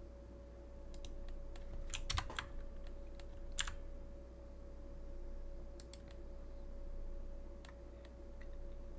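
Scattered clicks of a computer keyboard and mouse in use, a quick cluster of several about two seconds in, over a steady faint electrical hum.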